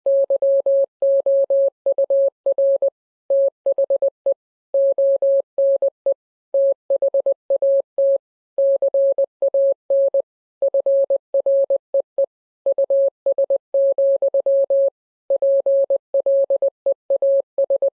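An electronic beep at one steady mid pitch, switched on and off quickly in short and longer pulses grouped with brief gaps, like Morse code. It starts suddenly out of silence.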